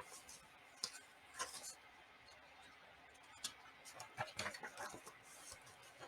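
Faint scattered rustles and small clicks of a hardcover picture book being handled as a page is turned.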